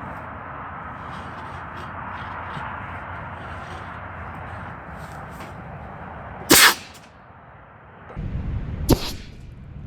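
Air-powered potato cannon firing once, about six and a half seconds in: a single loud, sharp blast of released compressed air over a steady hiss. A second, lighter sharp crack follows about two seconds later.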